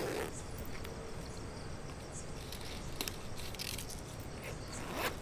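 A leather handbag being opened and rummaged through: soft rustles and a few small clicks over a steady low background hiss.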